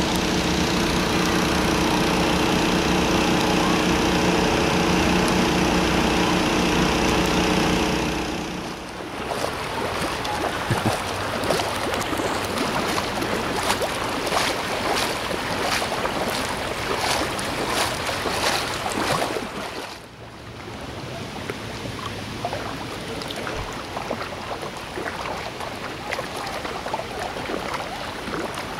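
An engine hums steadily for about eight seconds, then stops. Then come splashes of feet wading through floodwater, about two steps a second, giving way at about twenty seconds to the steady rush of floodwater flowing over the street.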